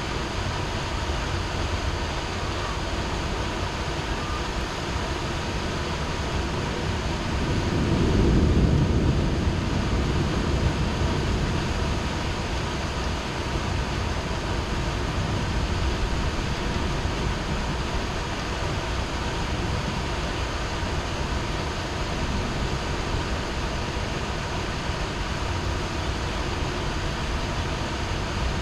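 Heavy rain falling steadily in a city thunderstorm, with a low rumble of thunder that swells about seven seconds in and fades a few seconds later.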